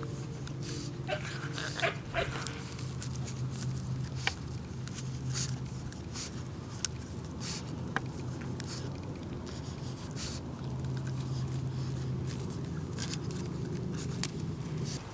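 Pug puppy making a low, steady dog sound while it plays in dry dirt, broken off a few times, with scattered short scratches and clicks.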